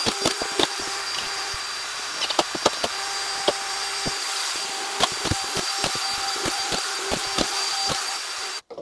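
An electric motor running steadily with a high whine, with many sharp knocks and clicks over it; it cuts off suddenly near the end.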